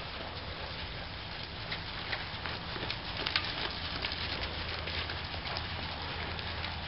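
A horse's hooves falling on soft arena dirt, with small irregular clicks and creaks from the saddle and tack, over a steady low hum.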